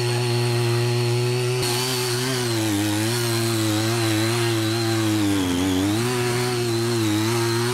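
A CY50 mini tiller's 43cc two-stroke engine runs steadily under load as its tines churn muddy soil. The pitch sags briefly a few times as the engine labours, most deeply about five and a half seconds in, then recovers.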